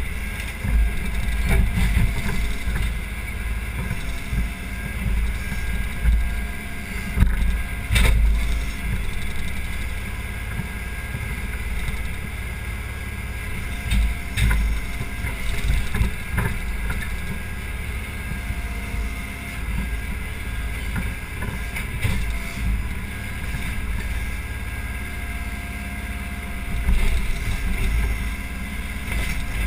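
Case 580 Super M backhoe's diesel engine running steadily while the backhoe arm works, with a few sharp clunks of the bucket against wood debris, the loudest about eight seconds in.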